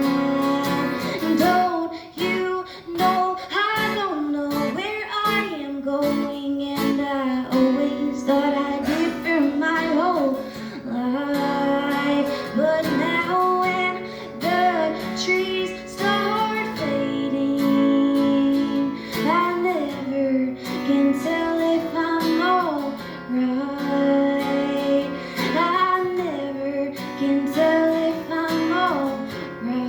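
Live song: guitar strumming with a singer's voice carrying the melody in long, gliding notes.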